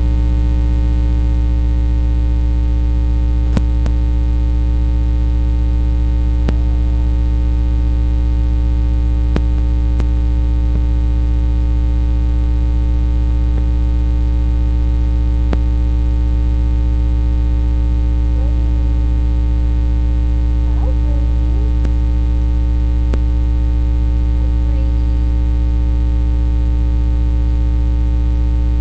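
Loud, steady electrical hum, like mains hum, with many overtones and a few faint clicks.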